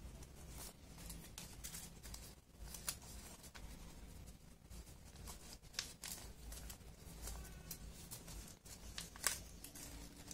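A sheet of origami paper crinkling and crackling under the fingers as it is folded and pinched into shape, in many short irregular crackles with the sharpest about three and about nine seconds in.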